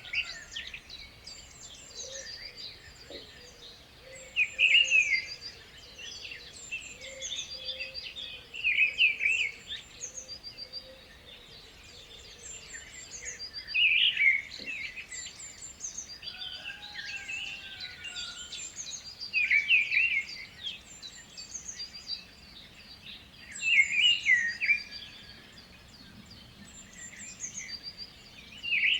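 Several birds singing: one louder song phrase repeats about every five seconds, over constant thinner, higher chirping from other birds.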